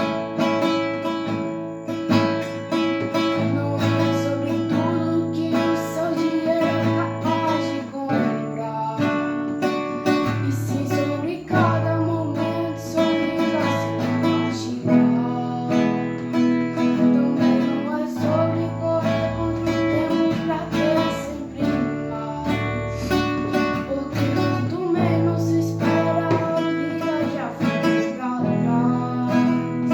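Acoustic guitar strumming chords in a steady rhythm, the chords changing every second or two.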